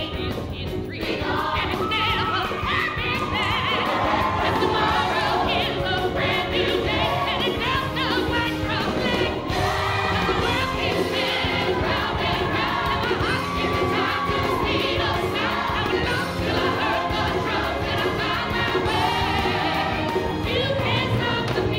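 Recorded show tune with several voices singing together over a full band, playing without a break.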